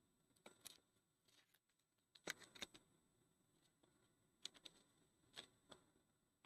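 Near silence with faint, scattered rustles and clicks of trading cards and packs being handled.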